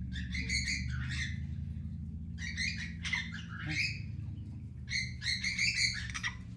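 Pet macaw calling in three bouts of chattering squawks, each about a second long, with a steady low hum underneath.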